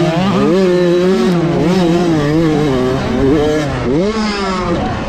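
A 65cc two-stroke motocross bike's engine revving hard under the rider, its pitch rising and falling with throttle and gear changes, with a sharp drop and climb about four seconds in.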